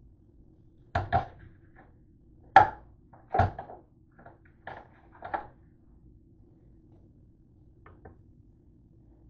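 Metal spatula scraping and knocking on a metal baking tray as potato wedges are turned over: a run of sharp clatters between about one and five and a half seconds in, then two faint taps near the end.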